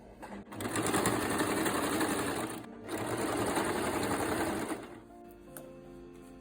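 Sewing machine stitching a plastic zip into fabric, running in two spells of about two seconds each with a brief stop between.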